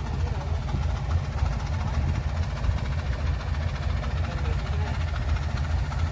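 Kubota DC-105X combine harvester's diesel engine running with a deep, steady rumble as the machine crawls forward on its tracks through mud.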